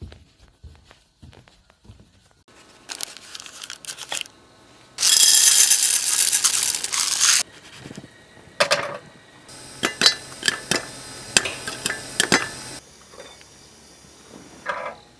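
Plastic packaging being handled, crinkled and torn open, with a loud ripping stretch in the middle and more crinkling and small clicks later.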